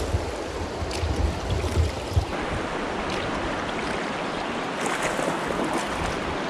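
Shallow, rocky river rapids rushing around a canoe running them, a steady wash of moving water. A low rumble sits under it for about the first two seconds, and a couple of short knocks come in the first few seconds.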